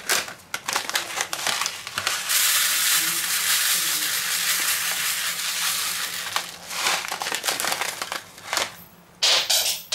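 Chocolate sprinkles poured from a plastic bag into a stainless steel tray: a steady rush of tiny grains on metal for about four seconds, with the bag crinkling as it is opened before and as it is handled after.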